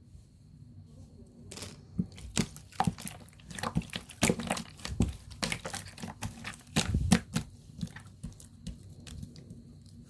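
Slime being squeezed and worked by hand, giving a busy run of sticky pops and crackles that starts about a second and a half in, peaks near seven seconds and thins out toward the end.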